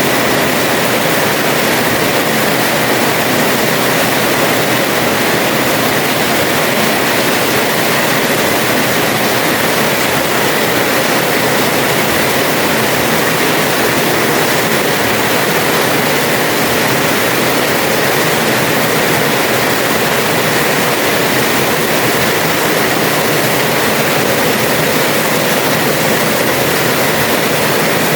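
Heavy rain falling steadily on a house terrace, a dense, even downpour with no letup.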